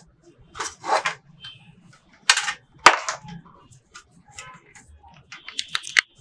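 Plastic parts of a laser printer clicking and knocking as its grey plastic cover panel is handled and fitted during reassembly: a few separate sharp clacks, the loudest two a little over two and just under three seconds in, and a quick cluster of clicks near the end.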